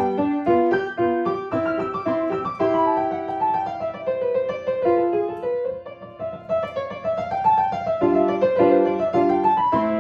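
Solo piano playing a sonatina: a melody over repeated chords, easing and quieter through the middle, then firm repeated chords near the end.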